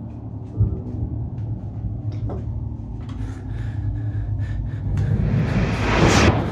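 Low rumbling ambient drone with a single knock about half a second in and a faint click a couple of seconds later. Near the end a rising whoosh swells to the loudest point, then cuts off suddenly.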